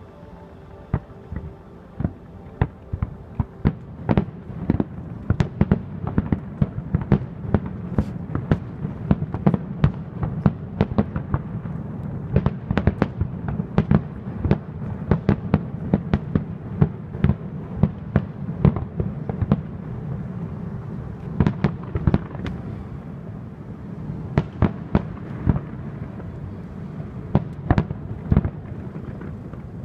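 Aerial fireworks display fired from barges: a dense barrage of shell bursts, many sharp bangs close together over a continuous low rumble. It eases briefly about two-thirds of the way through, then picks up again.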